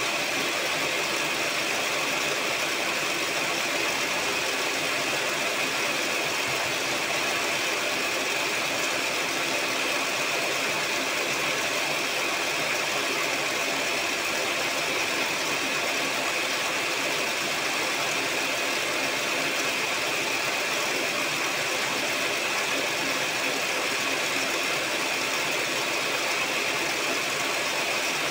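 Electric mixer running steadily at constant speed, its beaters whipping eggs, sugar and SP emulsifier into a foamy batter. It is a continuous motor whine with a strong high tone.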